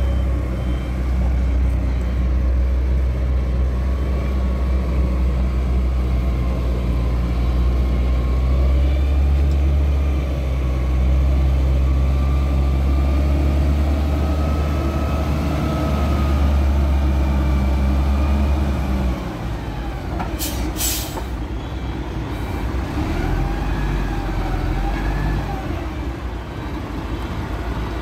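Concrete mixer truck's diesel engine running with a steady low hum, dropping in level about two-thirds of the way through. A short hiss of air brakes follows soon after.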